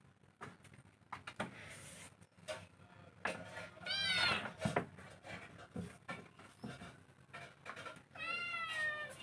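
Kittens meowing: a rising-and-falling meow about four seconds in and a second, falling meow near the end, with light knocks and scuffles from their play-fighting in between.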